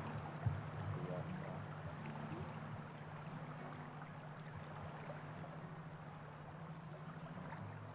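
Steady, even rush of a river's current flowing past, with a low hum under it throughout.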